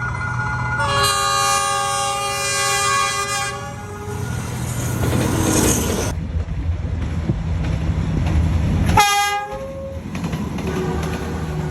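D19E diesel locomotive horn sounding a long chord of about three seconds, then a short blast about nine seconds in, over the steady low rumble of the locomotive.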